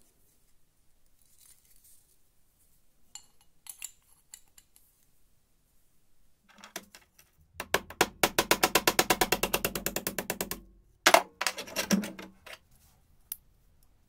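Steel hammer striking metal clamped in a bench vise: a fast, even run of ringing blows, about ten a second for some three seconds, then a few heavier separate blows. Light clicks of the metal hinge parts being handled come a few seconds earlier.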